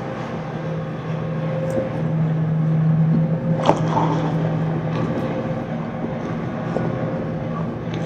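Electric sewing machine running as it stitches through satin, heard as a steady low machine drone that swells in the middle, with one sharp click about three and a half seconds in.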